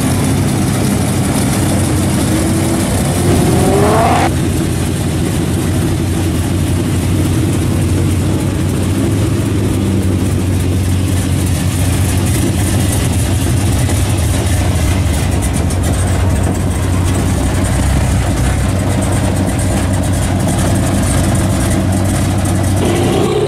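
Classic American muscle cars running at low speed as they drive slowly past. About four seconds in, one engine revs with a rising pitch that cuts off sharply. After that a steady, low engine and exhaust note carries on.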